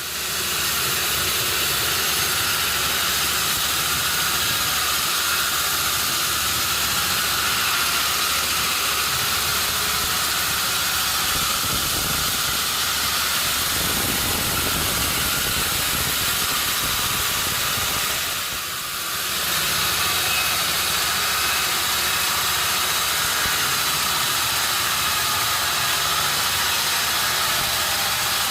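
Sawmill machinery running with a steady, loud, hissing mechanical noise. It dips briefly about two-thirds of the way through.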